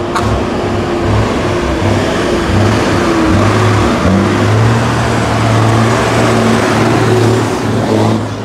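Engine of a big rig truck running with a steady, loud low drone as the truck pulls past close by.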